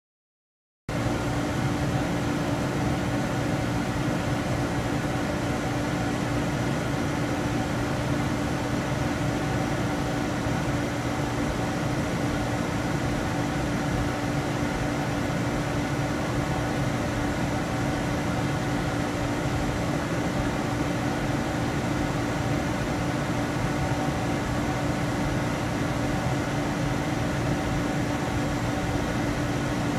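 Steady electric motor hum with a constant low tone, starting abruptly about a second in, most likely from a motorized display turntable.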